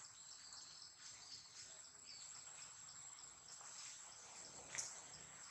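Faint insects chirping in the forest: a quick run of soft high chirps over a steady high whine. A single sharp click sounds near the end.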